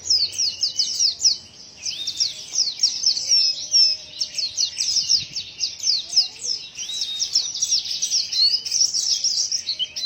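A pleci (white-eye) singing a long, unbroken song of quick, high, downward-sweeping chirps, a song its keeper calls strange.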